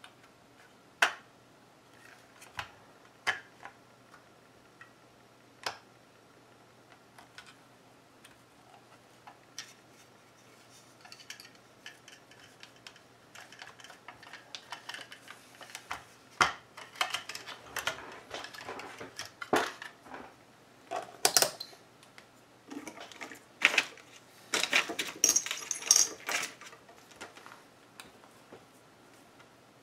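Hard plastic clicks, taps and rattles of a Howard Leight by Honeywell radio earmuff being handled and opened up. There are a few separate sharp clicks at first, then a busy run of clicking and clattering through the second half.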